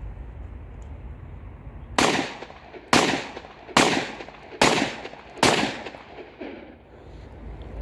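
9mm compact pistol built as a copy of the Glock 26 Gen 4, fired five times at about one shot a second, each shot followed by a short echo.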